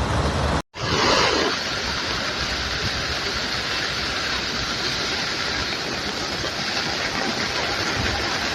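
Rushing floodwater: a steady, even roar of water, broken by a short gap less than a second in.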